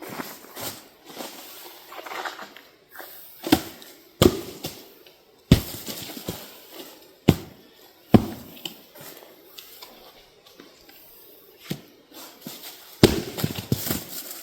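Chunks of chainsawed firewood being tossed into a wheelbarrow, landing with a series of sharp wooden knocks a second or more apart, with rustling and handling in between.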